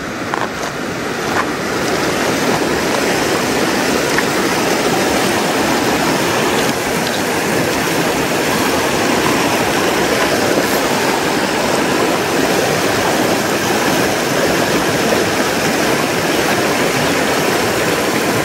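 Rushing whitewater of a small mountain stream pouring over rocks into a plunge pool: a loud, steady rush that swells over the first couple of seconds and then holds. Near the start, a few footsteps crunch on river gravel.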